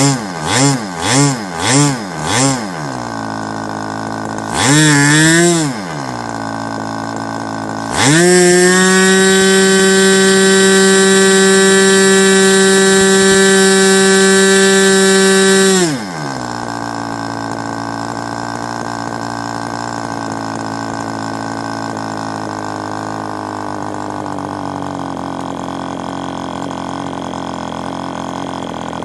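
Freshly rebuilt SC .40 two-stroke model glow engine running. It is blipped up and down several times, about two revs a second, then revved once more. Next it is held at high revs with a steady high-pitched note for about eight seconds, then it drops back to idle and runs on.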